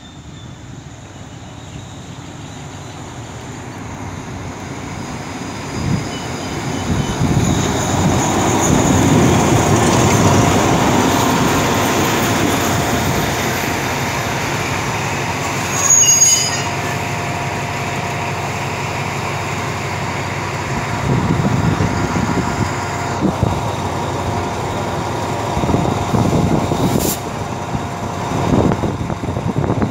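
A locomotive-hauled passenger train pulling into a station, growing louder as it comes alongside and then slowing to a stop. There is a brief high-pitched squeal about halfway in.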